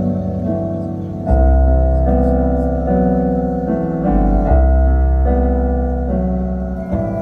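Live band music led by slow piano chords over a sustained deep bass, the chords changing every second or so.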